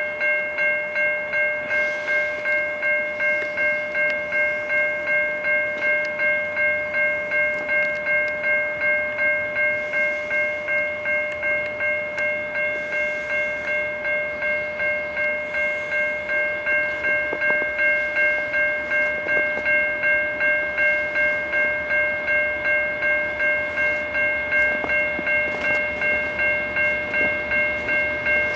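Railroad grade-crossing bell ringing steadily at about two strikes a second, its warning for an approaching train.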